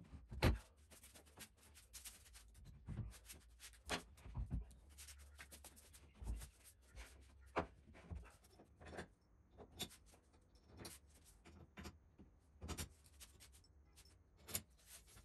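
Faint, scattered clicks and knocks of steel bolts and machine parts being handled and set down on a wooden workbench, with a sharper knock about half a second in.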